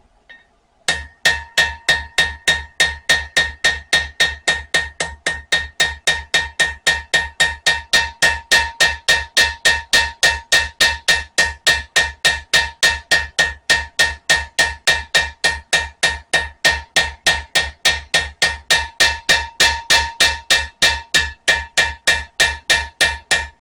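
Ball-peen hammer tapping a spring-steel knife blade at a steady pace, about three light blows a second, each with a metallic ring, peening a dimpled texture into the second side of the blade.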